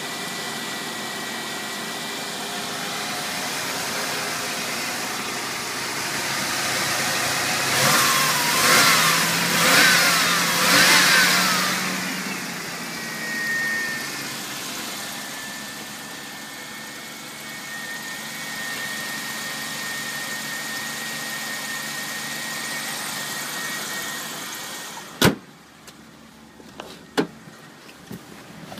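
Mazda Eunos Cosmo's 20B three-rotor twin-turbo rotary engine idling, blipped four times in quick succession about eight seconds in and once more shortly after, then settling back to idle. Near the end a sharp knock, after which the engine is much quieter, and then a second click.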